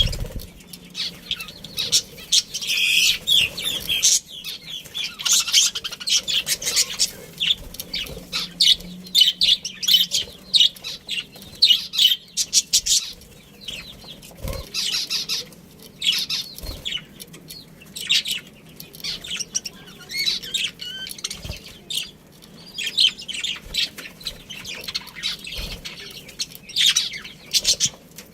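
Budgerigars chirping and chattering in quick, irregular high chirps, with a few soft thumps along the way.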